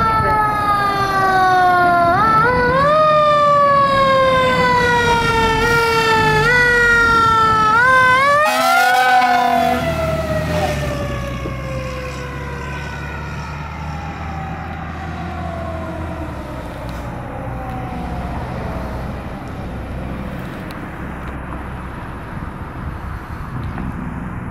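Fire engine siren wailing while the truck runs on its call. For the first half the pitch keeps sagging and is pushed back up in quick spurts about every second or so. It then winds down in one long falling tone that fades out, over the low, steady sound of the truck's engine.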